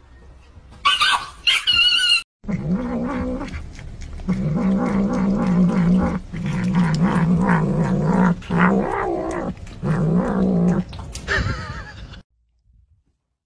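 Domestic cat growling in long, low, wavering stretches, several in a row with short breaks, while it bites at a raw fish in a bowl: a possessive growl over food. Near the start there are a few brief, loud, high cries.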